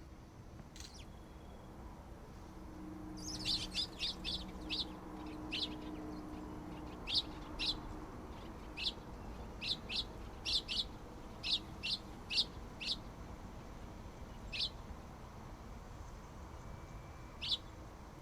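A bird giving short, sharp, high chirps: a quick run of them about three seconds in, then single chirps about a second apart, with the last ones spaced wider near the end.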